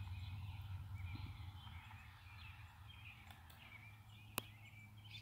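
Faint outdoor ambience: scattered bird chirps over a low steady hum, with a single sharp click a little past four seconds in.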